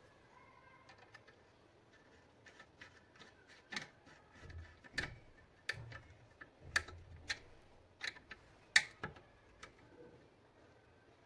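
Irregular small clicks and taps of plastic and metal as wires are pushed onto the terminals inside an electric iron's opened handle, with a few faint knocks. The sharpest click comes about three quarters of the way through.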